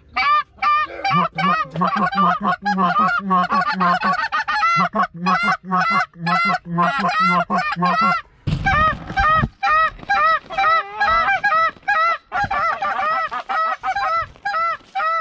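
Geese honking and clucking: loud, rapid calls overlapping one another throughout, with a low steady drone beneath them for the first eight seconds or so and a short break about eight and a half seconds in.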